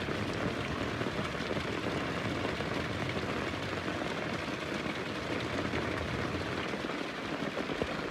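Heavy rain falling steadily, an even hiss of drops with no distinct thunderclap.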